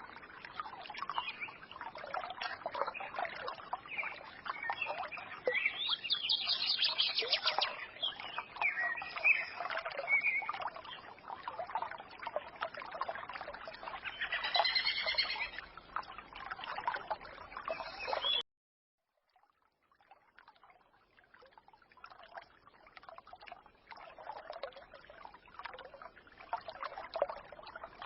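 Forest stream trickling and babbling, with small birds chirping and twittering over it. About two thirds of the way in, the sound cuts off abruptly for a second or so, then the trickling returns quieter.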